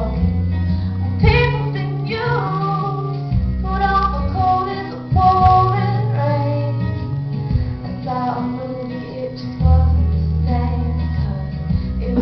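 A girl singing a song into a handheld microphone, over instrumental accompaniment with sustained low bass notes.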